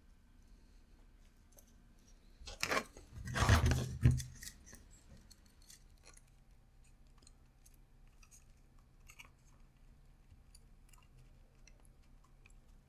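Plastic parts and wiring being handled and pushed together as a 3D-printed mouse shell is closed over its electronics: a crackly scraping and rustling burst of about a second and a half, starting about two and a half seconds in, then faint small clicks of handling.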